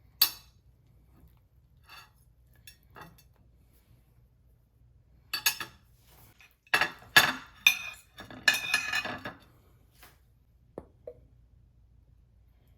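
Dishes, cutlery and food containers being handled in a kitchen: a sharp clink at the start, a few light knocks, then a busy run of clattering and clinking in the middle, and a couple of small taps near the end.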